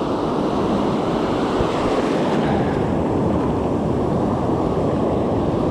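Ocean surf washing steadily onto the beach, with wind on the microphone.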